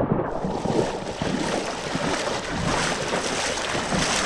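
Steady rushing noise of wind and moving river water, crackly and without any clear tone.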